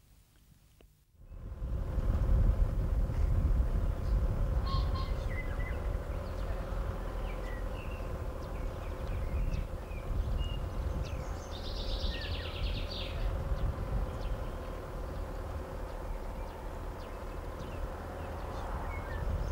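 Outdoor ambience: a steady low rumble with a faint hum, and birds chirping now and then, with a short trill near the middle. It starts about a second in, out of near silence.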